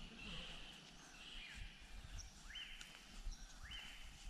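Faint jungle ambience: birds calling repeatedly, with calls that rise and then hold a high pitch, over a low outdoor rumble.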